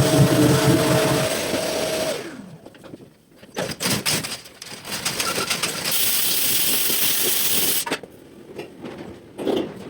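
Power sander running on a car door panel, then spinning down and stopping about two seconds in. Scattered light knocks and handling sounds follow, then a steady hiss lasting about two seconds.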